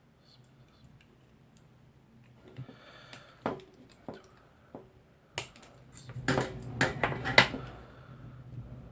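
Clicks and clatter of small hard plastic and metal network-wiring parts being handled. A few separate sharp clicks start about three and a half seconds in, then a quick run of louder clicks and rattles comes near the end.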